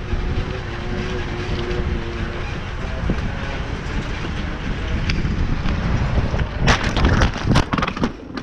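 Wind and road noise while riding a bicycle in traffic, then a bicycle crash about six and a half seconds in: a quick run of loud knocks and clattering as the bike and rider go down onto the pavement.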